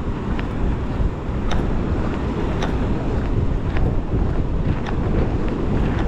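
Wind buffeting the phone's microphone: a loud, steady low rumble. Faint short ticks come about once a second.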